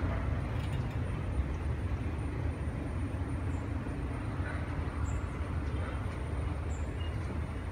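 An Indian Railways express train's blue passenger coaches rolling past at speed, their wheels on the rails making a steady rumble with faint clicks.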